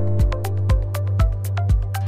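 Background electronic music with a steady beat and a held bass.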